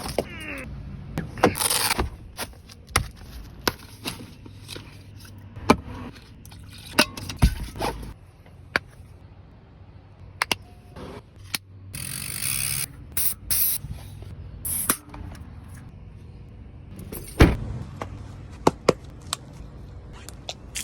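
Mountain bike ridden on a dirt trail: tyres scraping and crunching over the ground, with frequent sharp knocks and rattles from the bike over bumps. A stretch of louder hissing scrape comes about halfway through.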